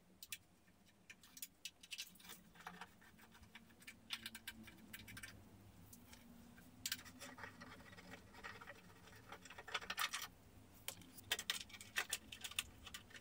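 Faint metallic clicking and clinking of hand tools on the front mudguard bolts of a motorcycle's upside-down forks, in short irregular runs.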